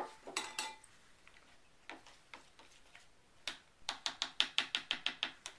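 White plastic spoon clicking against the sides of a plastic measuring jug while soap is stirred. A few scattered taps come first, then a quick run of clicks, about eight a second, near the end.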